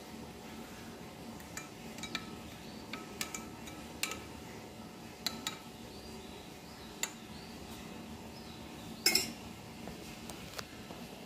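A metal spoon stirring in a drinking glass of juice, clinking against the glass at irregular intervals while salt and black pepper are mixed in. The loudest clink comes about nine seconds in.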